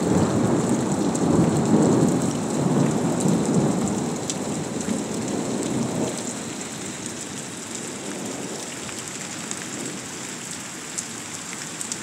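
Thunder rumbling in a heavy rainstorm, the roll dying away over the first few seconds and leaving steady rain.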